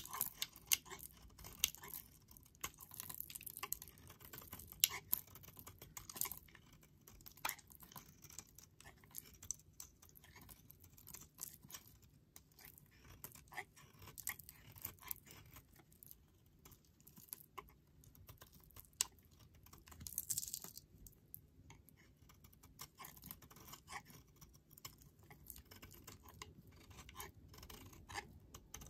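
Snap-off utility knife blade carving and shaving a bar of charcoal and rosehip oil soap: a quick, irregular run of crisp crunching scrapes as soap curls flake off. About twenty seconds in comes one longer, louder scrape.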